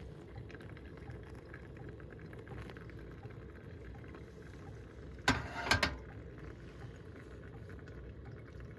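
5 kW diesel air heater running with a steady low rumble. Two loud knocks come about five and a half seconds in.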